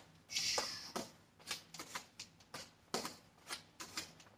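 Ssang jeol bong (nunchaku) swishing through the air as it is swung through a V-strike. There is a longer swish near the start, then a quick run of short, soft swishes and brushes.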